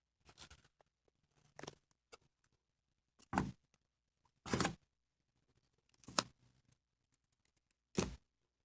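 Faint handling noises: a few separate short rustles and knocks, one every second or two, with quiet between.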